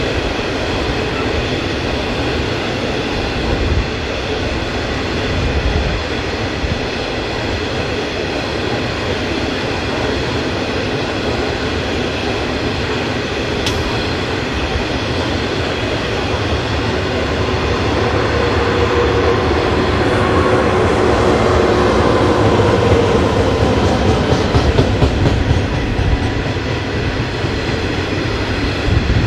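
Heavily loaded coal train of hopper wagons hauled by Queensland Rail electric locomotives rolling past: a steady rumble of wheels on rail, with high steady ringing tones above it. The sound grows louder for several seconds past the middle as the mid-train electric locomotives go by.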